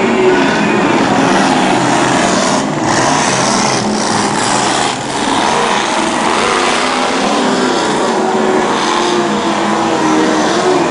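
Drag boat engine running loudly, its pitch drifting up and down, with a brief dip in level about five seconds in.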